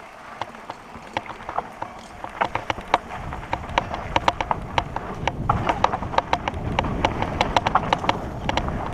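REI Co-op 2.1 hardtail mountain bike clattering over a rough dirt singletrack, irregular sharp clicks and clacks from the bike jolting over bumps. A low rumble of tyres and wind grows louder about three seconds in as the descent picks up speed.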